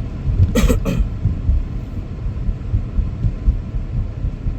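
Low, steady rumble of a car's engine and tyres heard from inside the cabin while driving, with a brief sharp sound about half a second in.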